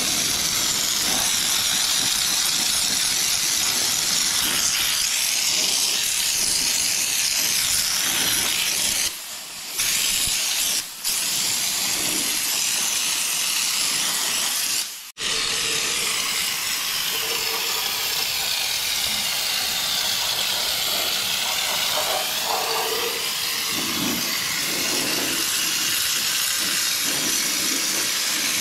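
Compressed-air spray gun hissing steadily as it sprays underseal onto a Toyota Hilux chassis. The spray cuts out briefly three times, a little after 9 s, near 11 s and about 15 s in, as the trigger is let go.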